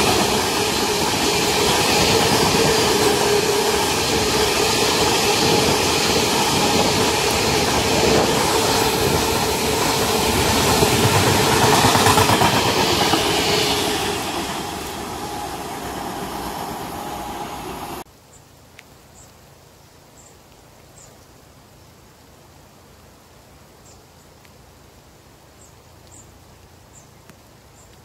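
A freight train of loaded wagons, with a GB Railfreight Class 66 diesel locomotive at the rear, rolling past at speed. The sound fades as the rear locomotive goes by about halfway through, then cuts off abruptly to a faint background with a few high chirps.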